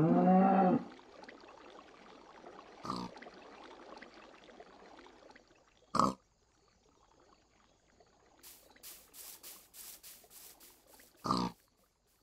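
Short pig grunt sound effects, three of them a few seconds apart, for a LEGO Minecraft pig, after a loud rising pitched sound in the first second. From about two-thirds of the way in, a rapid regular series of high chirps, about three a second, runs under them.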